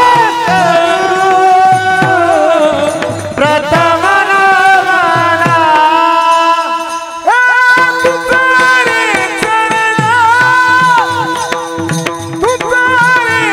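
Warkari devotional bhajan: a male lead singer's amplified voice carries a slow, ornamented melody with long held and sliding notes, over brass taal hand cymbals and regular low mridang drum strokes.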